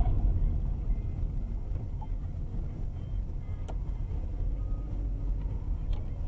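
Steady low rumble of a car's engine and tyres on the road, heard from inside the cabin by a dashboard camera, with a few faint ticks.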